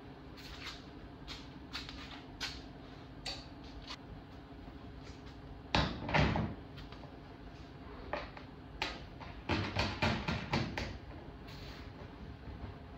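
Glue-pull dent repair tools working on an aluminium car bonnet: scattered small clicks and taps, then a loud sharp snap about six seconds in as a glue-tab puller is pulled. Around ten seconds a quick run of clicks and knocks follows as a bridge puller is set on the panel, all over a steady low hum.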